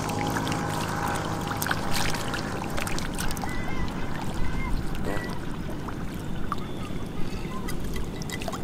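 Water splashing and sloshing as stranded catfish thrash in shallow muddy water, with scattered sharp splashes over a steady low rumble.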